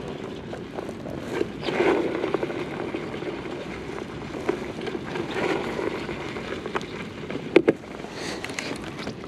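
Handling noise from a fishing rod and tackle held close to the microphone: rustling and scattered small clicks, with a sharp double knock about seven and a half seconds in.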